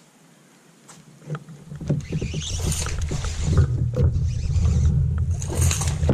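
Kayak knocking and rumbling close to the microphone as it moves against a metal dock, with many small knocks and two short bursts of hiss.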